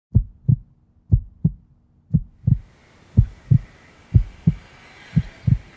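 Heartbeat sound effect: low double thumps, lub-dub, about once a second. A steady hiss comes in about halfway through.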